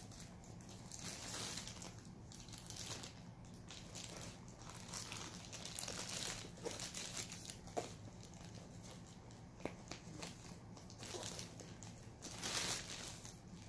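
Clear plastic wrapping on a handbag strap crinkling and rustling as the bag is handled and turned over, in irregular swells, with a few light clicks.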